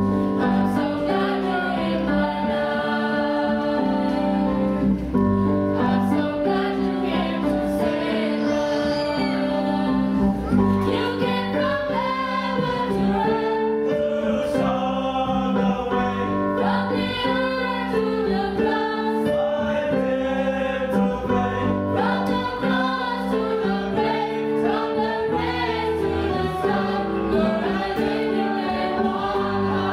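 Mixed choir of young women and men singing a hymn together, over steady low accompaniment chords that change every few seconds.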